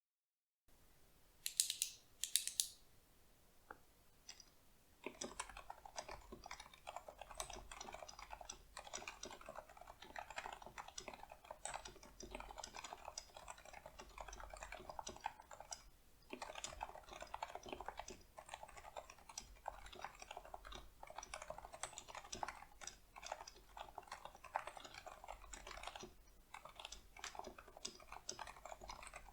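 Typing on a Leopold FC660C keyboard with silent Topre 45g switches and PBT keycaps: a steady run of soft, muted keystrokes with brief pauses. A few louder, sharp noises come about two seconds in, before the typing starts.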